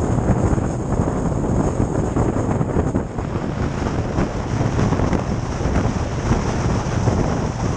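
Strong storm wind buffeting the microphone while riding through rain and ice: a loud, steady rushing noise, heaviest in the low end.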